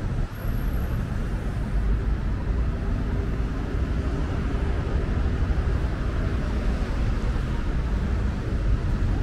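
City street traffic: a steady wash of cars and buses running on the road beside the pavement, with a low rumble.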